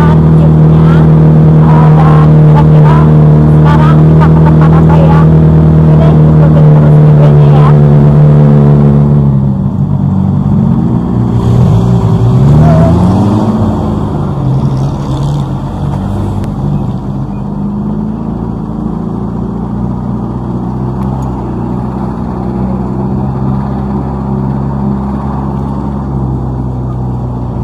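Open-top jeep engine running at a steady speed, heard from on board. About nine seconds in, the engine note drops and glides up and down as the jeep slows. It then settles to a quieter, steady idle.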